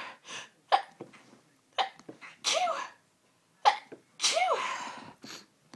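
A woman sneezing several times in quick succession during a sneezing fit, with sharp, sudden sneezes and noisy breaths between them.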